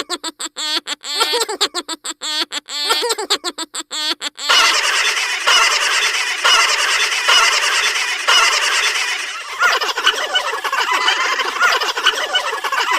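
Gobbling fowl calls: a series of short, rapid warbling calls for about four seconds, then a loud, dense chorus of many overlapping gobbling calls.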